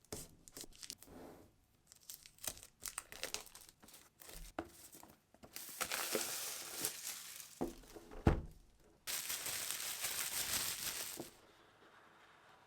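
Packaging of a mechanical keyboard being opened by hand: crinkling and rustling with scattered taps and knocks. A longer rasping stretch comes about halfway through, and a louder, steady one near the end that stops suddenly.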